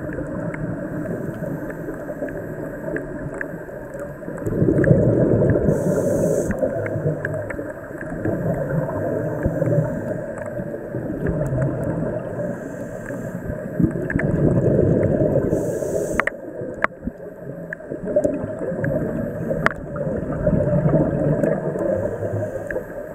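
Scuba diver's regulator breathing recorded underwater: a low bubbling rumble that swells with each exhalation every few seconds, with two brief high hisses. Scattered sharp clicks run underneath.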